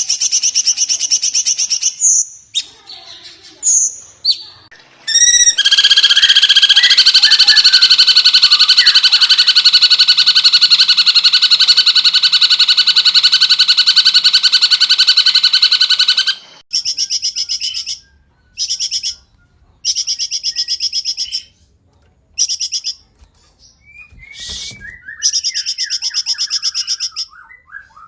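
A cungkok songbird singing in rapid, dense trills. A short burst opens, then one long unbroken trill lasts about ten seconds. After that comes a string of shorter trilled bursts with gaps between them.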